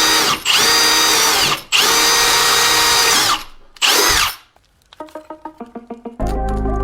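Electric drill triggered in four short bursts, its motor whining up to speed and winding down each time. About five seconds in, music with plucked notes starts.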